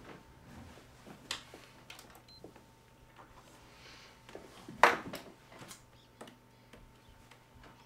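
Quiet office room tone with a steady low hum, broken by scattered clicks and knocks from someone working at a desk computer; the loudest knock comes about five seconds in.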